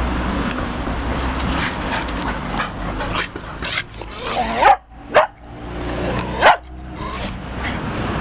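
A dog barking: three short, loud barks about halfway through, over a steady background hiss.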